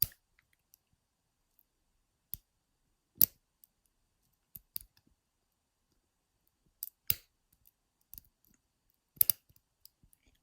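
Lock pick and tension wrench clicking against the pins of a five-pin ISEO euro cylinder lock: a dozen or so sharp, separate metal clicks at irregular intervals, the loudest about three seconds in and again about nine seconds in.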